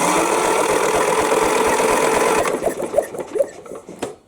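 Electric starter cranking a Craftsman key-start mower engine with the spark plug removed, so it spins fast and evenly with no compression. It runs steadily for about two and a half seconds, then slows and stops with a sharp click about four seconds in. This is a spark test, and a good spark is found.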